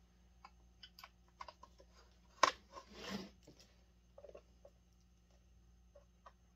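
Faint scattered clicks and taps of small metal parts and tools being handled while working a screw into its hole on a chainsaw, with one sharper click about two and a half seconds in and a short rustle just after.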